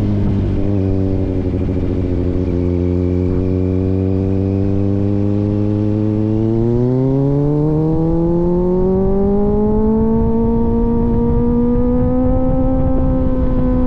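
Kawasaki Z900's inline-four through an aftermarket AR exhaust, holding steady at low revs, then rising smoothly in pitch from about halfway through as the bike accelerates, levelling off near the end.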